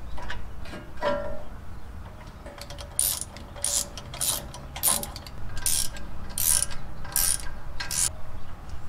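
Hand ratchet wrench tightening the brake caliper mounting bolts, with a short burst of pawl clicks on each back-swing, about eight swings a little under a second apart. A few metal clinks come first as the caliper is set on its mount.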